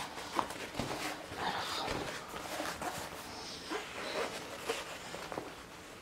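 Diamond painting canvas in its plastic protective film being unrolled and smoothed flat by hand: irregular crinkling and rustling with small taps and clicks.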